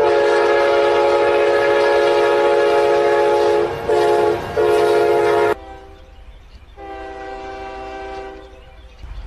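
Diesel locomotive horn sounding a loud chord of several notes: one long blast, then a short one and another long one, cut off about five and a half seconds in. After that a fainter train horn sounds for about a second and a half, and another begins near the end.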